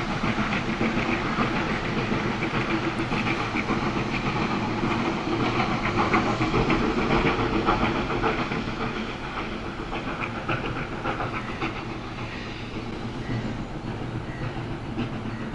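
Steam locomotive-hauled train passing, its wheels clattering on the rails. It grows slowly fainter over the second half.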